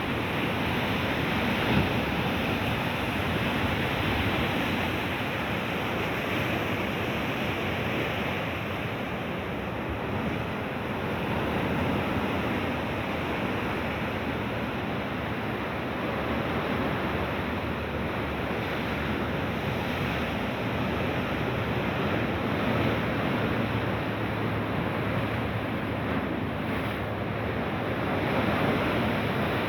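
Mediterranean sea surf washing ashore: a steady rushing noise that swells a little now and then.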